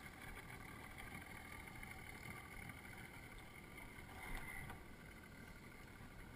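Faint steady hum and low rumble of a small boat on a river, with one short louder sound about four seconds in.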